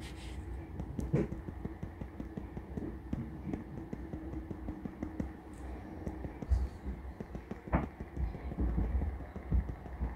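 A technical pen's fine metal nib tapping dots onto paper while stippling: rapid, irregular light ticks, several a second. A faint steady hum and a low rumble lie beneath.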